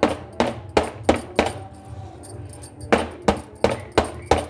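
A metal cake tin full of batter is rapped repeatedly on a wooden chopping board, about three knocks a second with a pause in the middle, and bangles clink with each knock. The tapping is done to knock air bubbles out of the batter before baking.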